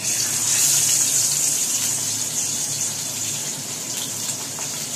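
Pabda fish sizzling in hot oil just after being slid into the pan: a loud hiss that starts suddenly and eases off a little after the first second or two.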